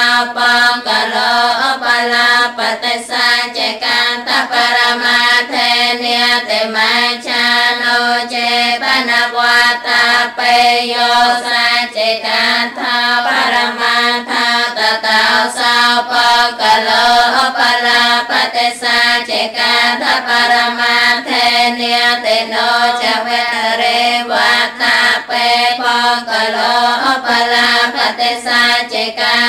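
A Buddhist nun chanting Pali scripture in a continuous, melodic recitation, the voice holding and bending its pitch with only brief breaths.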